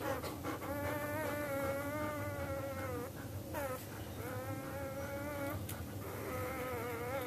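A dog whining in three long, drawn-out, wavering high calls, the last one cut short.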